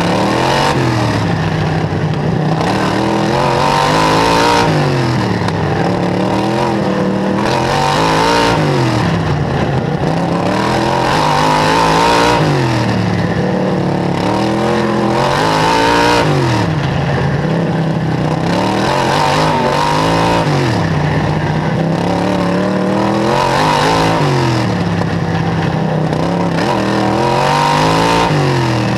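Outlaw racing kart's engine, heard onboard, running hard around a short oval. Its revs climb and drop back in a steady cycle about every four seconds: up on each straight, down for each corner.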